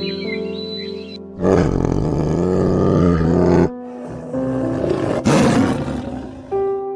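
Tiger roaring twice over soft piano music: a long roar of about two seconds, then a shorter one about a second and a half later.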